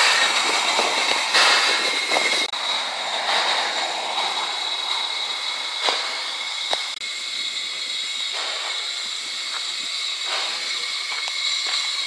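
Steam locomotive No 699, built by A & G Price in 1922, standing with steam hissing steadily. The hiss is strongest at first and eases a little, with a couple of sharp knocks about halfway through.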